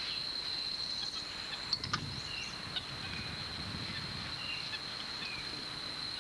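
Forest ambience: a steady high insect trill, with scattered short falling whistled calls and a few clicks about two seconds in.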